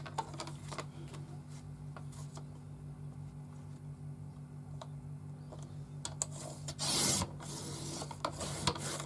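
Paper being shifted on a Fiskars sliding paper trimmer with small taps, then the trimmer's blade drawn along the rail once about seven seconds in, a brief cut through the photo paper on board.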